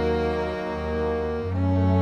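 Background film music of slow, sustained bowed strings over a low bass note; the bass steps up and the chord changes about one and a half seconds in.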